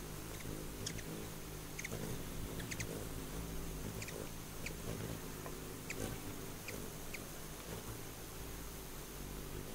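Ruby-throated hummingbird wings humming steadily, with short, high chip notes about once a second.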